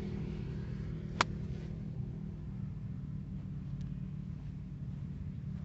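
A single sharp crack of a golf club striking the ball on a full approach shot, about a second in, over a steady low hum.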